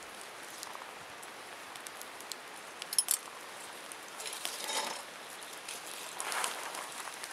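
Wood campfire crackling, with scattered sharp pops, the loudest cluster about three seconds in, and two brief rustles in the second half.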